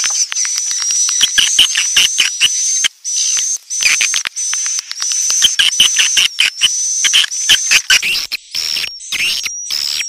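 Edited mix of edible-nest swiftlet calls: dense, rapid high chirping and clicking trills over a steady high-pitched tone. It is a lure recording played to draw swiftlets into a nest house.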